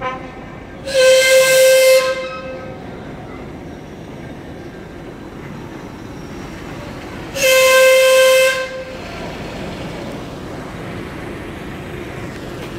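Two blasts of a steam traction engine's whistle, each one steady note with a breathy hiss, about a second long and some six seconds apart, over a steady background rumble.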